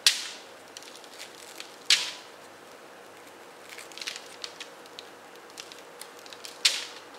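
Crustless ciabatta torn apart by hand, with soft crackling as the crumb pulls apart, and pieces dropped onto a baking tray lined with baking paper. There are three louder brief papery hits: one at the start, one about two seconds in and one near the end.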